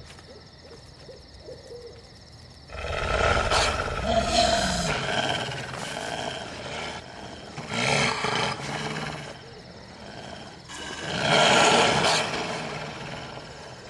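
A pack of wolves growling and snarling, in loud surges that begin about three seconds in, the loudest near the end.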